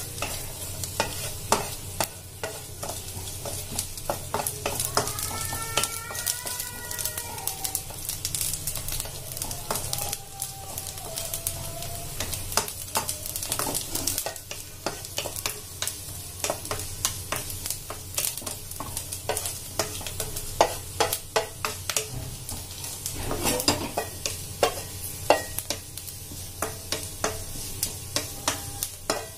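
Chopped coconut pieces sizzling as they roast in a nonstick kadai, stirred with a wooden spatula that clicks and scrapes against the pan many times. The coconut is being fried until lightly browned.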